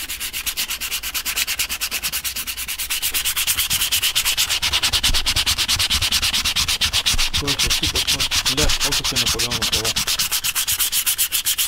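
Blue sanding sponge rubbed by hand in fast, even back-and-forth strokes over the shell of a full-face helmet, scuffing the old finish to prepare it for paint.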